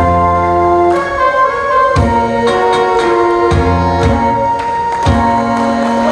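Instrumental backing track playing through a PA speaker: sustained keyboard chords over a low drum hit about once a second, with no singing, as the song's instrumental ending plays out.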